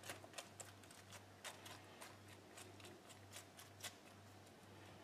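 Near silence: faint, irregular small clicks and rustles of fingers handling the fillings in a frying pan, over a faint steady low hum.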